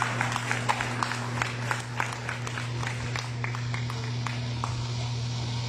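Audience applauding a graduate as his name is called, with single claps standing out; the clapping thins out in the second half. A steady low hum runs underneath.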